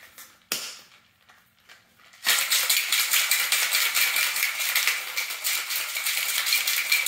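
Stainless steel cocktail shaker: a few clicks as its parts are fitted together, then from about two seconds in it is shaken hard, its contents rattling fast and loud against the metal.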